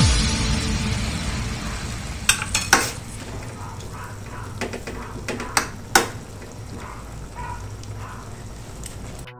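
A metal ladle stirring a wok of saucy stir-fried chicken and vegetables, with sharp clinks of metal against the pan about two to three seconds in and again around five to six seconds, over a steady low sizzle.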